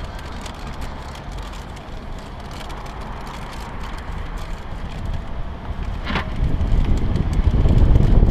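Wind buffeting the microphone and the rumble of wheels rolling on pavement, growing louder over the last few seconds, with one sharp knock about six seconds in.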